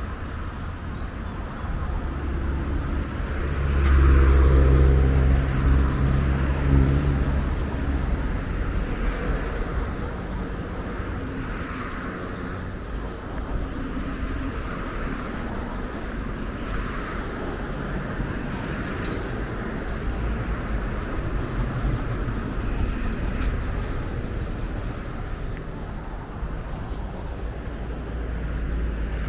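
Road traffic passing, with one vehicle's engine passing close and loudest about four seconds in, then a steady traffic rumble.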